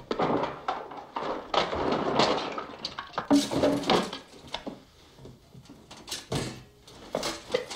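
Rummaging clatter and wooden knocks from things being tossed about in a wooden toy chest, followed by a few separate thumps and sharp knocks.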